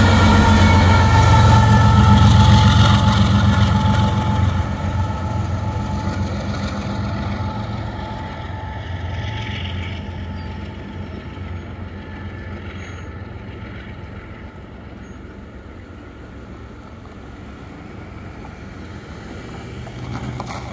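A GE C44ACCTE diesel freight locomotive passing close by. Its engine drone and a thin wheel squeal are loud for the first few seconds, then fade steadily as it moves away.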